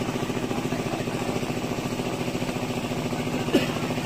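A small engine running steadily with an even pulsing hum, and one sharp thump near the end.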